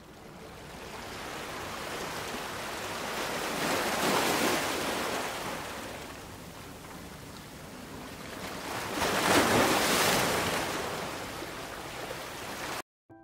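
Sea surf washing over rocks, a hiss of breaking water that swells twice, about four seconds in and again around nine to ten seconds, then cuts off suddenly near the end.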